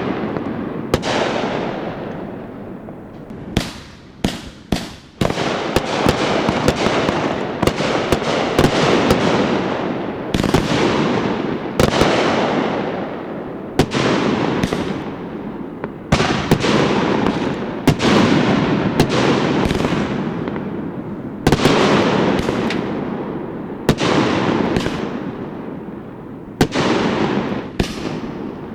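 Fireworks show: aerial shells bursting one after another, a sharp bang every second or two, each trailing off in a long fading rumble, with a quick cluster of several bangs about four seconds in.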